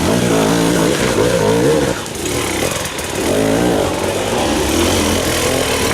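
Enduro motorcycle engines revving up and down, the pitch rising and falling every second or so, with the throttle easing briefly about two seconds in.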